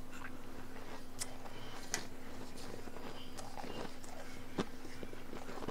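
Scattered soft crunches and crackles of powdery blender-crushed ice, with a metal spoon scraping and digging into the ice near the end.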